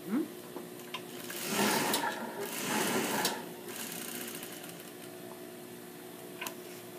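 Juki industrial sewing machine stitching layers of fabric and interfacing in two short runs of about a second each, its motor humming steadily between and after them. A single click comes near the end.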